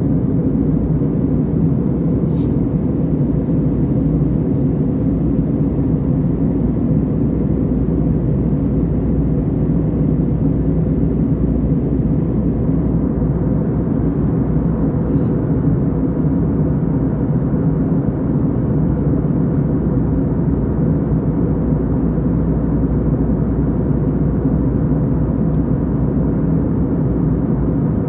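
Steady drone of an airliner in flight, engine hum and airflow heard from inside the cabin, even and unchanging throughout.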